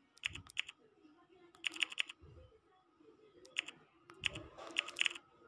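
Key-press clicks of a smartphone's on-screen keyboard as a message is typed, coming in short quick runs of three to five clicks with pauses between.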